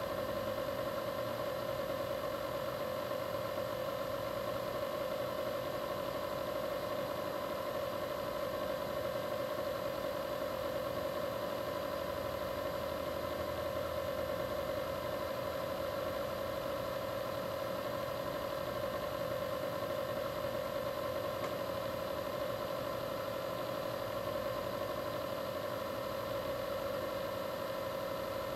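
Steady mechanical hum at an unchanging pitch, with no starts, stops or changes.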